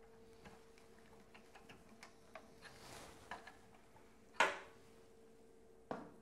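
Small ticks and clicks of a tool and hands working on the metal housing of a shock-bleeding vacuum machine, then a sharp knock with a short ring about four and a half seconds in and a second, smaller knock near the end, over a faint steady hum.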